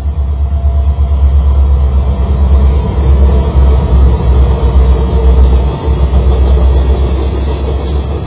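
Two Kansas City Southern diesel-electric locomotives passing at close range with engines running, a heavy low rumble, followed by the wheels of loaded tank cars rolling by. It is loudest as the locomotives go past in the middle and eases off as the tank cars follow.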